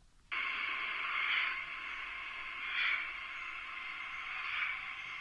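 Recorded running noise from inside a St. Petersburg metro 81-722 'Yubileyny' train, heard as a thin, tinny hiss through a phone's small speaker. It cuts in a moment after the start, as playback resumes, and swells slightly a few times.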